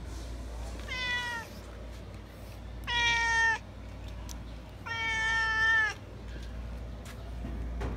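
Domestic cat meowing three times, a second or two apart: a short meow, then two longer, louder ones, each dropping slightly in pitch at its end. A steady low hum runs underneath.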